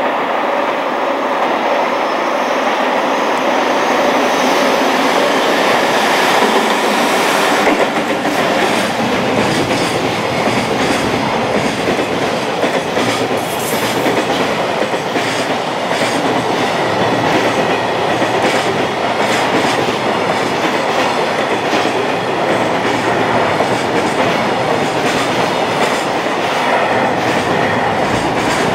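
High-speed container freight train passing through a station at speed. It approaches at first, then from about eight seconds in its container wagons rush past with a continuous clickety-clack of wheels hitting the rail joints.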